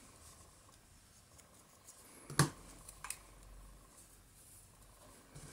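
Faint handling of a die-cut cardstock piece held between the fingers, with one sharp click about two and a half seconds in and a smaller one shortly after.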